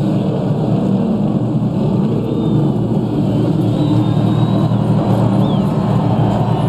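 NASCAR Craftsman Truck Series race trucks' V8 engines running at speed, a loud steady drone.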